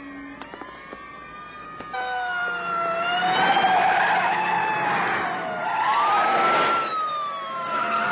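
Several police car sirens wailing, their pitch rising and falling, over car engine and tyre noise; they come in about two seconds in and stay loud.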